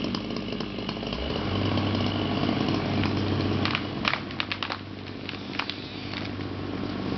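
Excavator engine running steadily, settling onto a deeper, steady note about a second in, with a cluster of sharp cracks around the middle.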